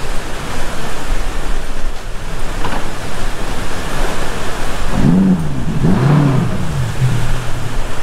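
Steady rush of the waterfall and churning water, with the boat's twin Suzuki outboard motors revving up and down twice about five seconds in, then settling to a steady idle.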